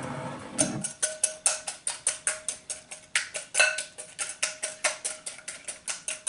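Wire whisk beating eggs, sugar and liquid in a glass mixing bowl: quick, even clinks of the wires against the glass, about four or five a second, each with a faint ring.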